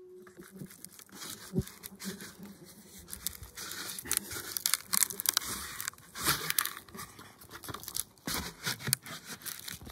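White birch bark being pried and peeled off a log with a flat wooden tool: irregular crackling and tearing as the bark sheet comes away from the wood.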